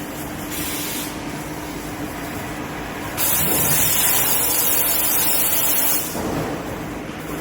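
Laser tube cutting machine running with a steady hum, with a brief hiss under a second in and then a loud, sustained hiss of the cutting head's assist gas for about three seconds from around three seconds in.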